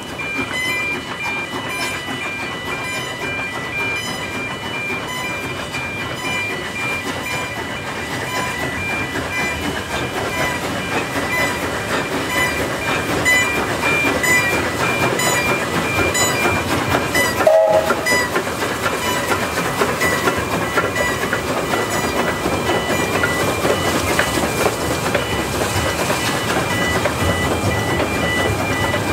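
NG/G16 Garratt steam locomotive moving slowly with its train, exhaust and running noise steady, while faint interrupted warning tones of a level crossing sound through it. About two-thirds of the way in there is a short sharp break and a brief louder note.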